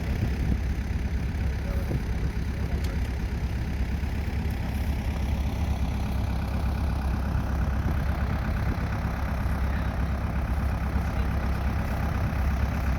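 Tractor engine running steadily, a low even drone with no change in speed.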